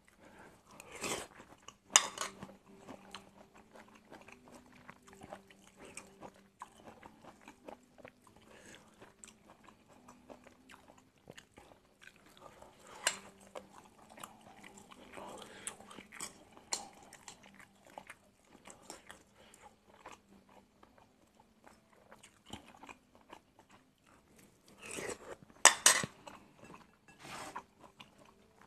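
Close-miked chewing and crunching of stir-fried angled luffa with egg, with bites of fresh red chilli. Many small mouth clicks throughout, with louder sharp crunches about two seconds in and near the end.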